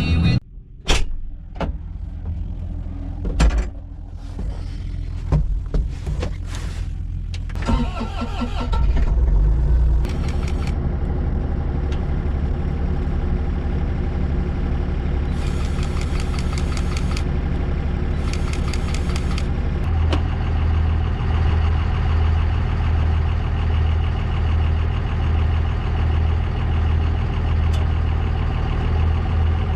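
Bobcat E40 mini excavator's diesel engine starting, with knocks and clicks beforehand, then running steadily at idle. There are two short hisses along the way, and the engine's low hum grows stronger about two-thirds of the way through.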